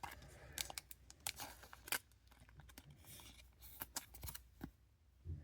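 Faint rustling and clicking of trading cards and pack wrappers being handled: short scattered scrapes, snaps and crinkles.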